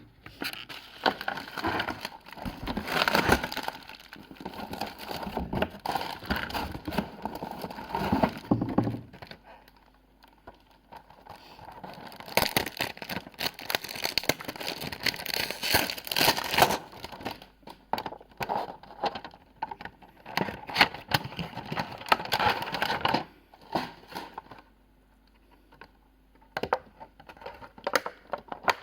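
Packaging being handled and unwrapped, crinkling and crackling in several long stretches with short pauses between them and a few scattered clicks near the end.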